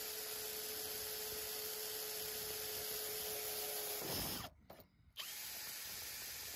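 Power drill running steadily with a small bit, drilling pilot holes for the spoiler's mounting bolts; it stops about four seconds in.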